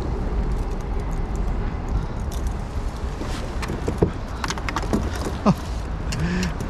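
Light clicks and knocks of a rod, line and fittings being handled on a plastic kayak, over a steady low rumble. About five and a half seconds in, a short squeak falls in pitch.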